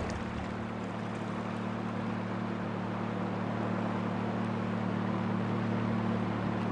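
Motor boat engine running steadily at sea, a low even hum over a wash of water and wind noise, growing slightly louder.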